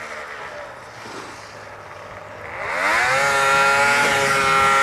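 Snowmobile engine revving up sharply about two and a half seconds in, then held at a steady high pitch under full throttle.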